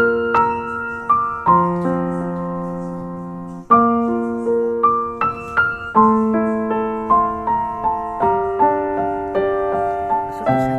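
Background piano music: a gentle melody of single struck notes, each fading, with a long held chord early on before the melody resumes.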